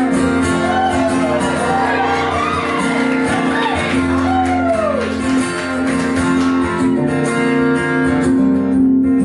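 Acoustic guitar playing held, ringing chords, with a wordless sung melody gliding up and down over it for the first five seconds or so before the guitar carries on alone.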